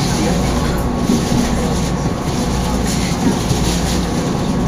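A train running on the track: a steady rumble with a few faint clicks, and faint voices underneath.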